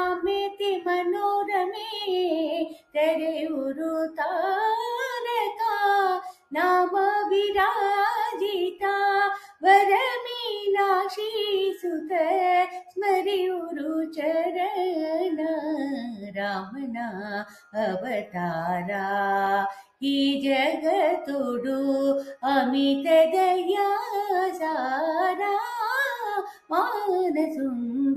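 A woman singing solo and unaccompanied, a flowing melodic line with held, bending notes, broken by short breath pauses every few seconds; the melody dips to its lowest notes about two thirds of the way through.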